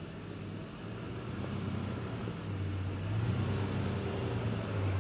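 Toyota Landcruiser 80 series engine running steadily as the 4WD crawls down a steep dirt track, growing gradually louder as it comes closer.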